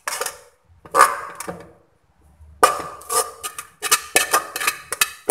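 Metal cooking pot and spoon clinking and scraping as overcooked spaghetti is tipped and pushed out into a plastic colander: a couple of short knocks, then a quick run of clinks and knocks in the second half.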